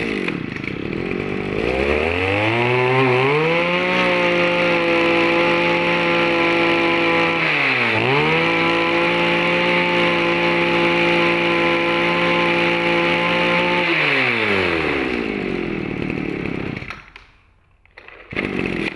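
Echo 253 brush cutter's small 23cc two-stroke engine running on test: it picks up speed about a second and a half in, holds at high revs with one brief dip and recovery midway, then winds down and stops near the end.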